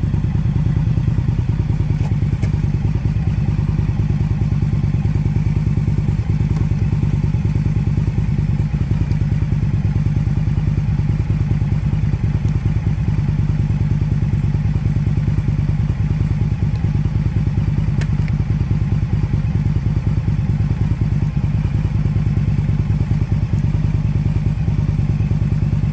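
Motorcycle engine running steadily without revving, a rapid even pulsing, carrying a sound its owner finds odd.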